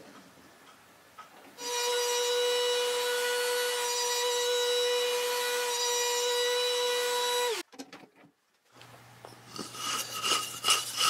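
Bosch trim router on the lathe running at full speed for about six seconds, a steady high whine, taking another pass at the inside thread of a wooden nut that is still too tight. Its pitch drops as it is switched off, and it cuts off suddenly. After a short silence, near the end, there is scraping and rubbing of wood on wood as the big wooden screw is turned into the nut.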